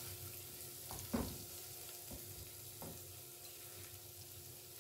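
Shredded vegetables sizzling in a non-stick wok, with a spatula scraping and knocking against the pan a few times in the first three seconds.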